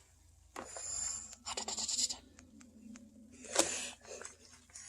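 Water sloshing and splashing in a bucket in a few short bursts, with light knocks, as a small portable washing machine is pushed down to the bottom among wet cloths; the machine is not yet running.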